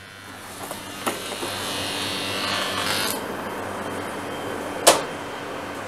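A rasping, rubbing scrape of a tool worked over a surface, strongest from about one to three seconds in. A single sharp click comes about five seconds in, over a faint steady hum.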